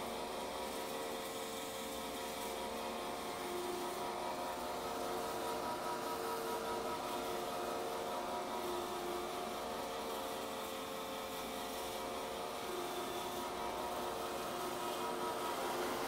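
iRobot Roomba i6+ robot vacuum running across a hardwood floor while cleaning, a steady whirring hum with several held tones.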